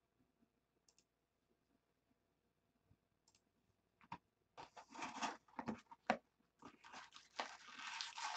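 Near silence for about four seconds, then crinkling, tearing and rustling as the plastic wrap comes off a cardboard box of trading cards and its lid is flipped open.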